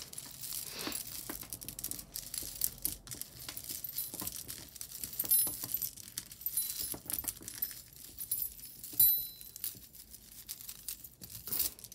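Costume jewelry (chains, metal and glass beads) clinking and jingling as it is handled and sorted, with small bright chime-like rings. The loudest clink comes about nine seconds in.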